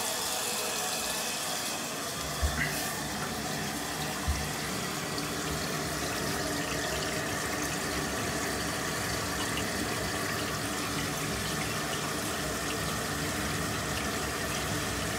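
Bath tap running steadily, water pouring into the bathtub and flowing out through its newly fitted drain trap, which is being tested for leaks. Two soft knocks come a few seconds in.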